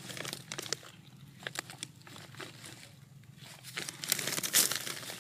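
Rustling and crinkling with scattered soft clicks, busier near the end.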